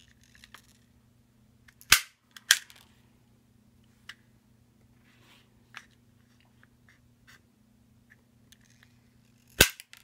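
Knipex self-adjusting insulation stripper snapping shut and springing open as it strips 10-gauge wire: two sharp snaps about two seconds in, a few faint ticks, then another sharp snap near the end.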